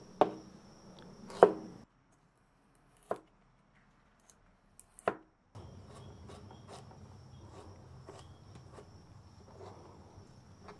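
Chef's knife cutting carrots on a cutting board: a few separate sharp strikes of the blade on the board in the first five seconds, then a run of faint, quick cuts as the carrots are julienned. The knife is dull, which the cook says makes fine julienne hard.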